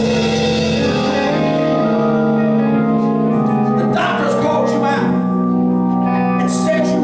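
Church band music: held organ chords with guitar, the chord changing a few times.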